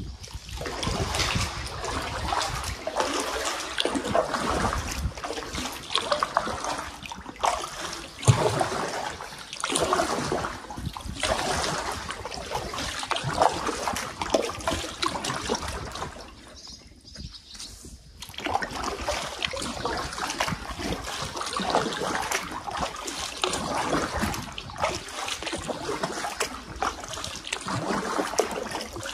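Water trickling and splashing as drops fall from the rock walls into the lake beside a paddled canoe, with irregular short splashes throughout. There is a brief lull about seventeen seconds in.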